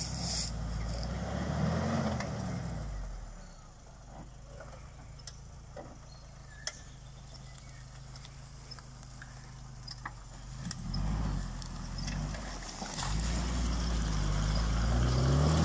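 Off-road vehicle engine idling and revving up in several pushes: once about two seconds in, again near eleven seconds, and longest over the last few seconds, with a quieter low-running stretch between. The revs come during the recovery of a stuck off-road vehicle, a tow pull.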